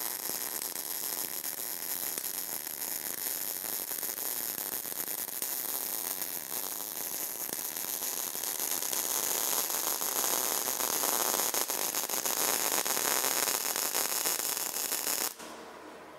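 MIG welding arc crackling steadily. About two-thirds of the way through it gets louder and harsher as a fan blows the shielding gas off the weld. The arc stops shortly before the end, leaving the fan's steady whir.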